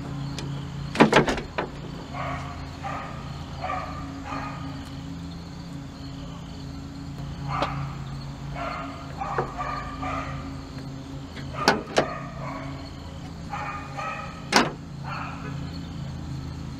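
Plastic cowl panel knocking and clicking as it is fitted back into place below the windshield: a few sharp knocks, a pair about a second in, two more about two-thirds through and one near the end, over a steady low hum.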